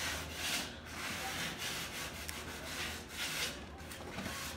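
Sandpaper rubbed by hand over an iron window grille and its wire mesh in repeated strokes, sanding the old surface down before painting.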